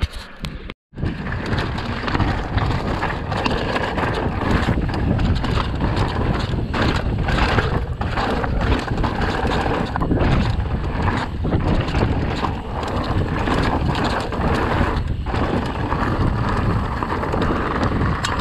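Heavy wind buffeting on the camera microphone of a moving mountain bike, with rumble and frequent rattles and knocks from the bike over rough ground. It starts after a brief break about a second in.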